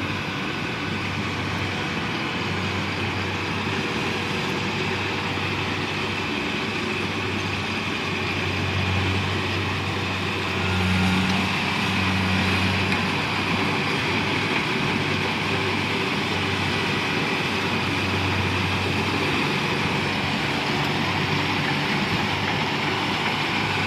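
Rice combine harvester running steadily under load: a continuous engine hum with the whir of its working machinery, swelling slightly about halfway through.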